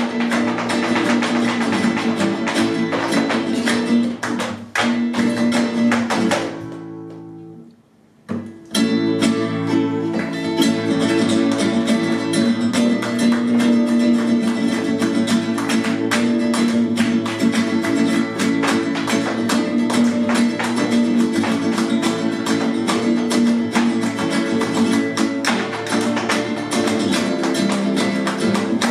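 Flamenco caña on acoustic guitars with sharp percussive strikes running through it. About six seconds in the music breaks off into a near-silent pause of a second or two, then starts again.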